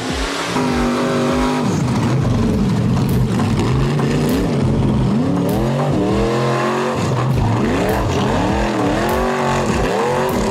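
Rock bouncer buggy engine revving hard in repeated bursts, its pitch climbing and dropping several times as the buggy claws up a steep dirt wall.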